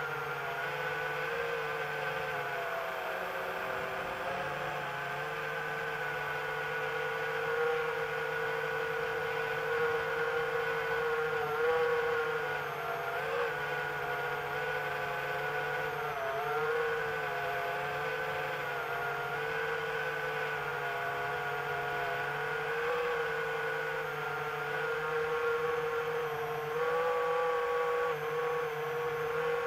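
Multirotor drone's motors and propellers whirring steadily, picked up by the drone's own onboard camera, the pitch wavering slightly as it manoeuvres.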